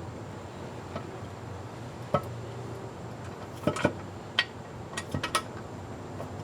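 A handful of sharp metallic clinks and taps, one about two seconds in and a quick cluster in the second half. These are bolts and hand tools knocking against the aluminum transmission pan and its fittings as the pan bolts are started by hand.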